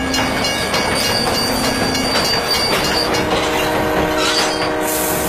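Diesel locomotive pulling into a station: the train running with wheels squealing on the rails, a high whine through the first half, then steady engine tones and a rising and falling squeal about four seconds in.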